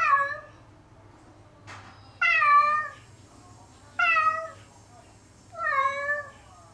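A cat meowing four times, about every one and a half to two seconds, each call falling in pitch. This is a cat crying while left alone, which the owner suspects is separation anxiety.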